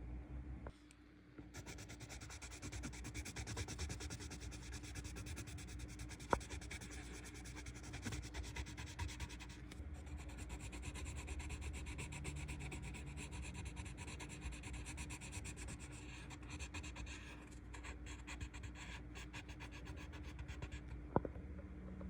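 Colored pencil shading on paper in rapid back-and-forth strokes, a steady scratchy rubbing after a short pause about a second in. Two sharp taps, about 6 s in and near the end.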